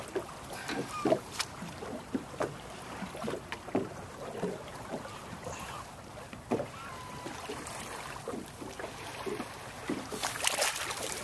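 Water slapping against the hull of a small boat, with irregular knocks and wind on the microphone. Near the end comes a louder rush of splashing as a striped bass is released back into the water.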